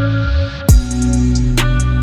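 Electronic background music: a rising whoosh builds and drops out about half a second in, then a heavy bass drum hit lands and quick hi-hat ticks follow over held synth tones.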